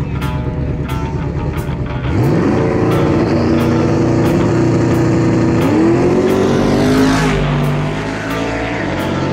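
Street drag car launching under hard throttle: after a low rumble, the engine's pitch sweeps sharply up about two seconds in and holds at high revs, climbs again with a gear shift near six seconds, then fades as the car runs away down the strip.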